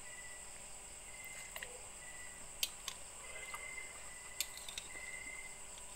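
A spoon clicking sharply against a bowl a few times while someone eats soup, loudest about two and a half and four and a half seconds in, over a faint steady high-pitched background.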